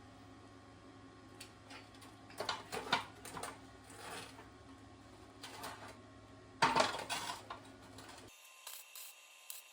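Metal parts clinking and knocking as they are handled and set down, in several separate clusters, the loudest about two-thirds of the way through. Near the end the steady background hum stops abruptly and a quick run of light scraping ticks begins.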